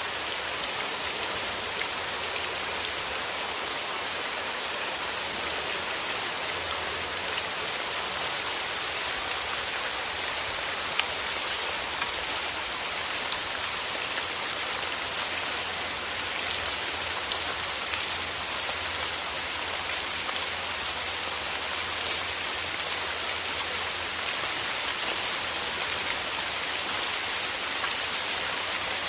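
Steady rain falling, with many small drop ticks patting on surfaces over an even hiss.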